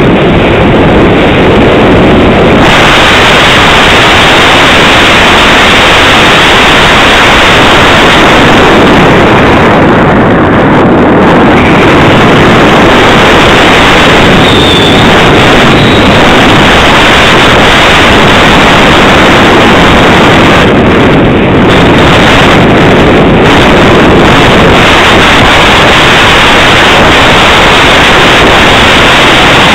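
Loud, steady rush of airflow over the onboard camera microphone of an EasyStar II model plane in flight, a hissing noise with brief dips about ten seconds in and again a little past twenty seconds.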